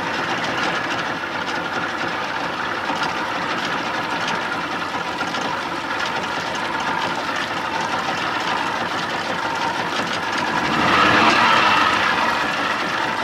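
A 1987 Johnson 6 hp two-stroke twin outboard motor running steadily at idle, getting louder for a couple of seconds near the end as it picks up speed.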